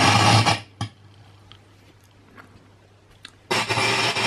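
Line 6 Spider IV 150 guitar amp crackling loudly through its speakers with no guitar plugged in: a loud burst of crackle that cuts off about half a second in, a sharp pop, a few faint ticks, then another loud burst of crackle near the end. It is an intermittent fault of unknown cause, which the owner guesses may be a bad capacitor.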